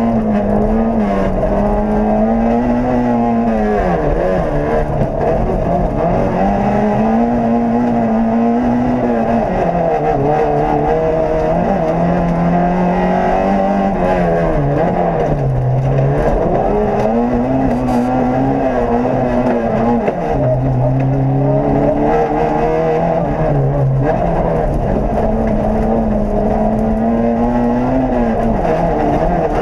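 Peugeot 106 F2000 rally car's four-cylinder engine, heard from inside the cabin, revving hard at full throttle. Its pitch climbs and falls back again and again as the driver shifts gears and lifts for corners.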